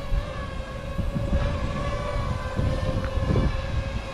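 FPV drone's propellers humming at a steady pitch, with wind rumbling on the microphone underneath.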